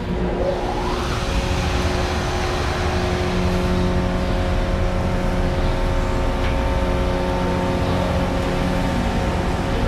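The dry-type hydraulic pump motor of a 2007 Lakeland-Larson / Schumacher hydraulic elevator starts and comes up to speed in the first second with a rising whine. It then runs steadily with a hum and a steady whine over a low rumble, driving the car.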